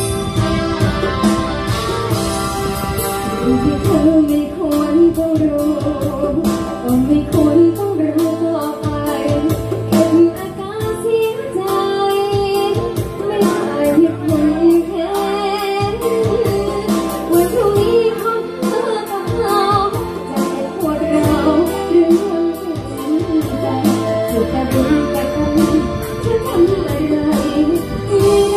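A song with a singing voice over instruments and a steady beat.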